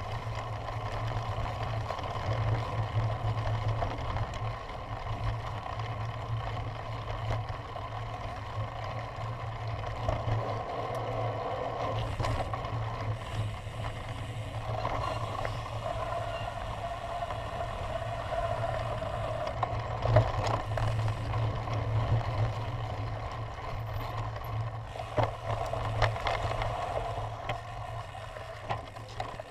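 Steady low rumble of a cyclocross bike riding over grass, heard from a camera mounted on the bike, with scattered clicks and knocks. The sharpest knock comes about twenty seconds in.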